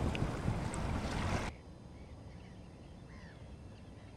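Wind rumbling on the microphone over open water. About a second and a half in it cuts out to a much quieter background with a few faint, distant seabird calls.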